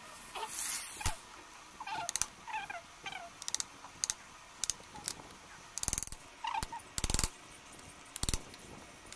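Steel chisel cutting and scraping into a wooden block while the mouth slot of a small wooden hand plane is cut: a series of short, sharp scrapes and knocks, the loudest three in the second half. Short, high, falling squeaks from an animal come in between.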